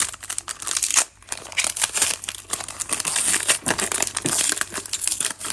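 Foil wrapper of a Prizm baseball card pack being crinkled and torn open by hand: a dense crackling, with a brief pause about a second in.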